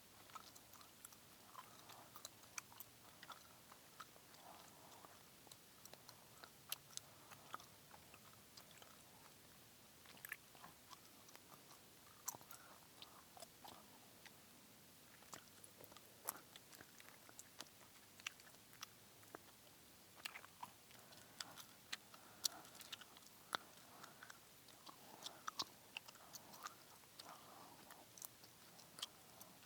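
Gum chewed close to the microphone: quiet, irregular wet smacks and sharp clicks of the mouth.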